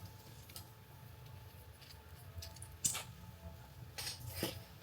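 Quiet room tone with a few faint short clicks about three and four seconds in.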